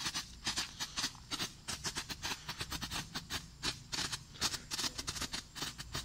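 Flashing (strobe) fireworks crackling: a rapid, irregular run of sharp pops, several a second, going on without a break.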